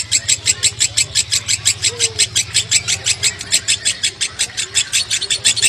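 Fischer's lovebird chattering in the long unbroken 'konslet' ngekek style: a fast, even run of sharp high notes, about nine a second, with no pause, over a steady low hum.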